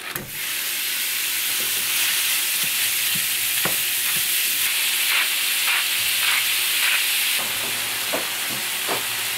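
Raw ground beef sizzling in a hot nonstick skillet as it goes into the pan and is broken up and stirred with a plastic spatula: a steady frying hiss with scattered taps and scrapes of the spatula on the pan.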